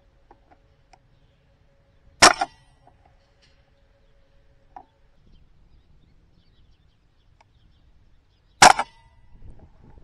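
Two shots from a .22 Brocock Sniper XR Magnum PCP air rifle, about six seconds apart. Each is a sharp crack followed a split second later by a smaller second knock.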